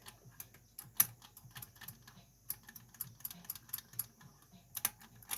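Irregular light metallic clicks and ticks of a wire lever pick and tension tool working the levers inside an ERA Invincible five-lever deadlock, with a sharper click about a second in and a quick run of clicks near the end.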